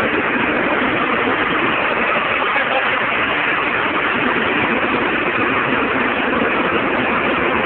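Scania 144 truck's 14-litre V8 diesel running at a steady, even level.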